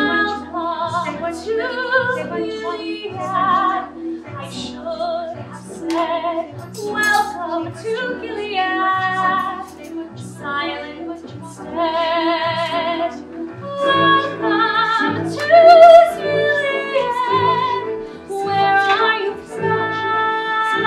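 A woman singing a musical-theatre song with strong vibrato over a steady, repeating instrumental accompaniment.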